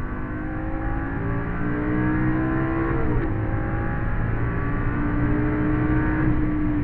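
Lamborghini engine under hard acceleration, heard from inside the cabin. The pitch climbs for about three seconds, drops sharply at a gear upshift, then climbs again more slowly.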